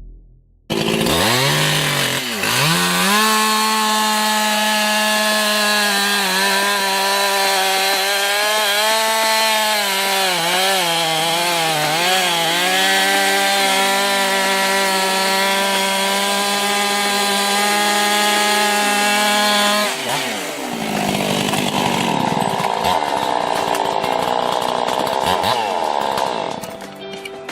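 A two-stroke chainsaw starts suddenly and revs up to a steady high-speed run, its pitch dipping and wavering briefly in the middle. About two-thirds of the way through, the even note drops to a lower, rougher sound before fading near the end.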